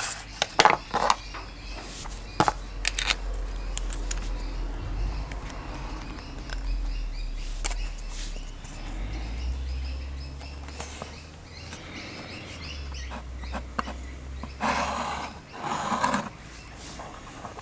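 Drawing tools working on paper on a wooden bench: taps and short scratches as a pencil line is ruled and the compass is handled, then two scratchy strokes near the end as the compass draws arcs on the paper. A low steady hum runs underneath.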